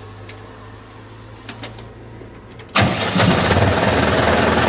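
Steyr 50 tractor's diesel engine idling quietly, then about three seconds in a loud, steady mechanical clatter starts abruptly as the PTO cardan shaft is engaged to drive a cement mixer.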